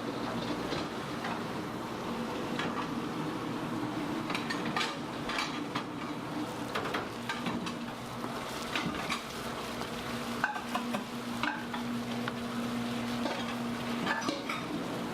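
Freshwater eel sizzling as it cooks, with irregular clinks and clatter of metal tongs and pans over a steady low hum.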